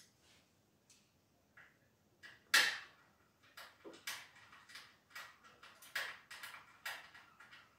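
A screwdriver and screws clicking and knocking against the steel body of a drum coffee roaster as a part is screwed onto its back. There is one sharper knock about two and a half seconds in, then a run of lighter clicks.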